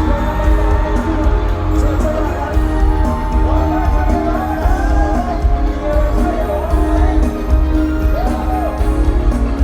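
Thai pop song performed live: sung vocals over a loud, bass-heavy backing track.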